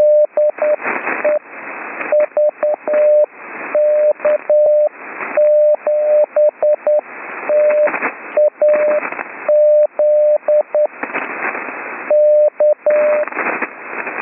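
Slow Morse code: a steady tone of about 600 Hz keyed into dots and dashes, forming letter groups, heard through HF radio band noise. Loud hiss and sharp static crashes run under and between the characters; the operator blames the rough HF conditions on a lightning storm.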